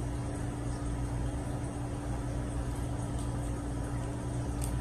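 A steady low hum with a fainter, higher steady tone above it and a light hiss, unchanging throughout; a faint click near the end.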